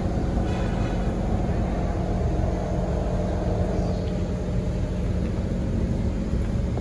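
Steady low hum and rumble inside a standing Kawasaki C151 MRT train car, its equipment running while the doors are open at the platform.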